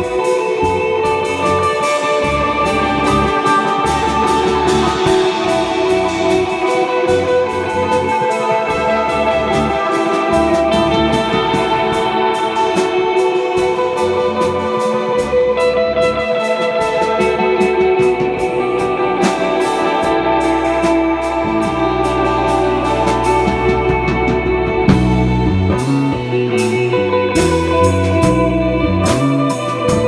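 Live instrumental rock jam: electric guitar and cigar box guitar playing sustained, overlapping lines over electric bass and a drum kit keeping a steady beat. Near the end the bass moves through a run of separate low notes.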